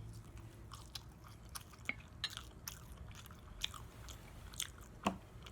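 Close-miked chewing of soft pancakes with syrup: small wet mouth clicks and smacks, with one louder click about five seconds in.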